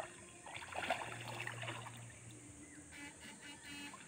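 Faint water sloshing and trickling around a person wading through a shallow stream, with a steady low hum in the background.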